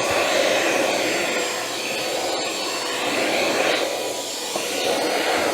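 XREXS H109 cordless handheld vacuum running at full suction, a steady motor whine over an airy rush, sucking up debris such as Christmas tree shavings and paper. Its level swells and dips a little as it is moved over the surface.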